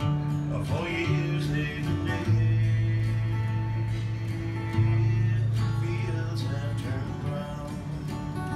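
A man singing to his own strummed acoustic guitar in a live solo performance, with long ringing chords, fresh strokes landing about two and five seconds in.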